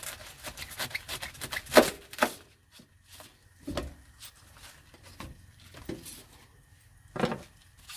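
Knife cutting into a savoy cabbage on a paper plate: a quick run of crisp cuts and leaf crunches over the first two seconds, then a few separate crunches and rustles as the outer leaves are pulled away.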